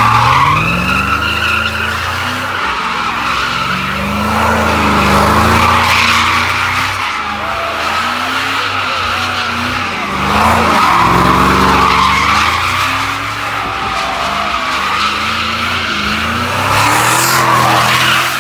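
Pickup truck doing donuts: its engine revs up and down while the rear tyres screech without a break. The sound swells about every five to six seconds as the truck circles.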